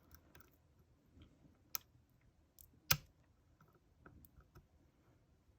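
Lock pick and tension wrench working the pins of a Yale euro cylinder lock: faint scattered clicks and scrapes, with two sharper clicks about two and three seconds in.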